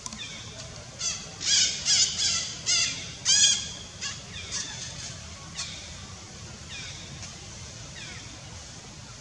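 A quick run of about six loud, high-pitched animal calls, each with a rich, layered tone, from about one to three and a half seconds in. Several fainter, shorter calls follow, each falling in pitch.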